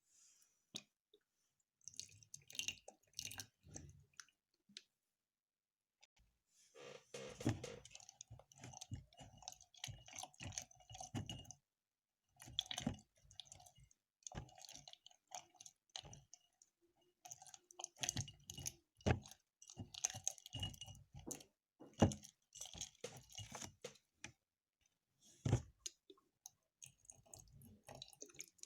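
Slime being mixed and worked: sticky squelching and clicking in irregular bursts, with short pauses.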